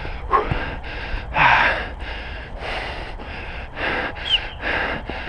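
A player's rapid, heavy panting close to the microphone, about two breaths a second.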